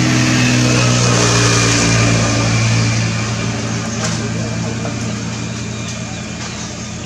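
Vehicle engine idling, a steady low drone that swells over the first few seconds and then eases off.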